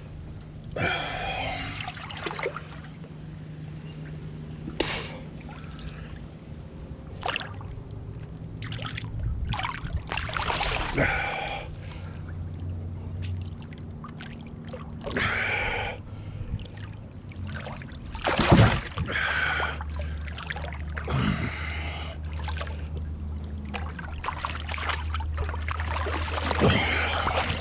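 Water splashing and sloshing in irregular bursts, with hard breathing, from someone working chest-deep in water to prise boards off dock pilings. A steady low hum runs underneath and drops lower partway through.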